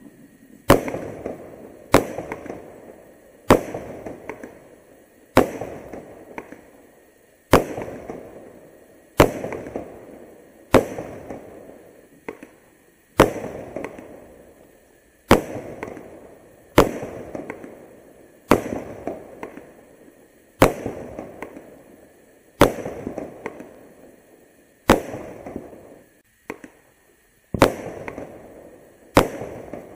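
Pretty Little Flyers seven-shot consumer firework cakes firing straight up, one after another: about sixteen sharp shots, one every one and a half to two and a half seconds, each trailing off over a second or so.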